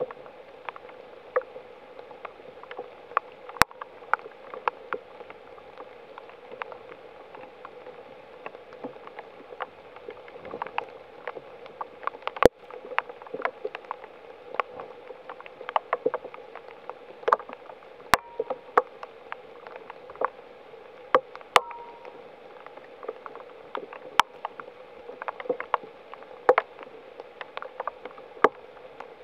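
Steady rain falling in woodland, with scattered sharp drips and clicks at irregular moments.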